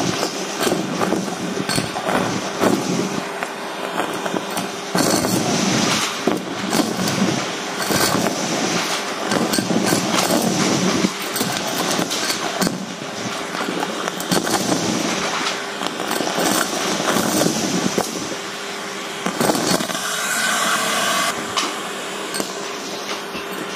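Vacuum cleaner running through a metal hose and tube, sucking up mixed craft debris off carpet: a steady motor hum under continuous rattling and clinking as sequins, buttons and beads crunch through the metal tube.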